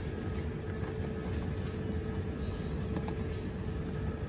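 Steady low rumble of shop background noise with a faint steady hum, and a few faint clicks as a cardboard coffee box is handled.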